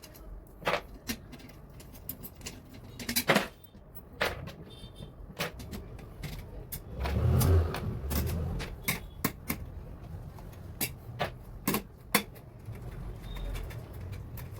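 Tools and small parts being handled in repair work: a string of sharp clicks and knocks, with a longer scraping, rustling stretch about seven seconds in.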